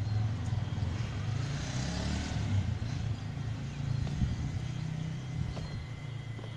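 Low, steady rumble of a motor vehicle running, with a swell of higher road noise about two seconds in.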